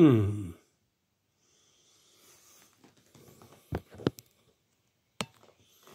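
A pitched tone sliding steeply downward, cut off about half a second in; then faint rustling and a few sharp clicks and knocks as the recording phone is handled and moved.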